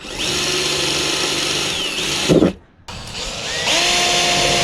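Power drill boring holes through the sheet-metal roof of a pickup cab. It runs with a steady whine, stops about two seconds in with a short knock, then spins up again a second later and runs on.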